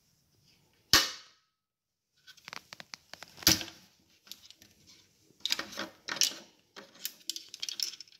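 Sharp plastic clicks and rattles as the fuel cap of a Husqvarna 445 II chainsaw is twisted open and lifted off the tank, with one loud click about a second in and further bunches of clicks after.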